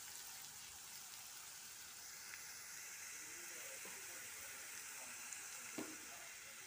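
Chopped onions frying in hot oil in a kadai: a faint, steady sizzle with a couple of small ticks. The onions are being sautéed until soft.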